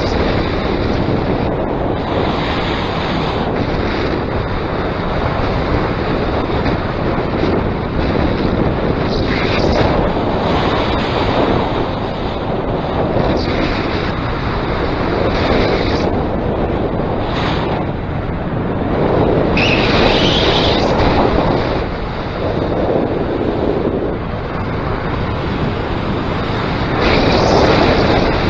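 Strong wind rushing over the camera microphone in paramotor flight: a loud, steady roar that swells every few seconds.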